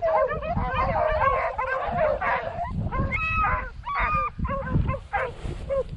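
A pack of beagles baying, many voices overlapping as they run a rabbit's track. The chorus thins to separate calls in the last second or two. Wind rumbles on the microphone underneath.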